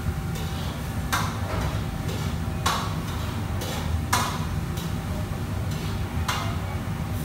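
Metal wok ladle striking and scraping a wok: four sharp clangs with a ringing tail and lighter clicks between them, over the steady low rumble of the wok burner and extractor hood.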